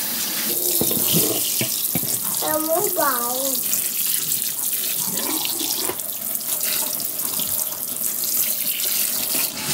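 Kitchen sink faucet spraying water over a raw beef roast on a wooden cutting board. The water runs and splashes steadily as the meat is rinsed.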